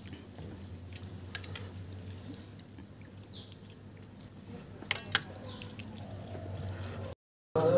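Steel tableware clinking during serving at a meal table: scattered light clicks over a steady low hum, with two sharper clinks about five seconds in. The sound cuts out abruptly just before the end.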